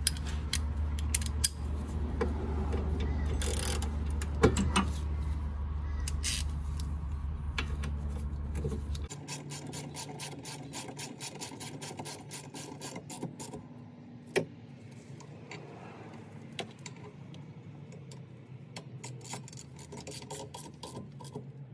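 Hand ratchet clicking in quick runs as the 14 mm rear brake caliper bolts are run down. A low steady hum lies under the first half and stops about nine seconds in.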